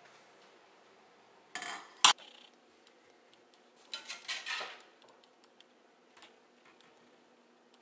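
Utensils working cookware. About two seconds in, a spoon scrapes a stainless steel saucepan of cooked rice and ends in a sharp metal clank, the loudest sound. Near the middle, a spatula scrapes stir-fried meat and broccoli around a cast-iron skillet, with light clinks in between.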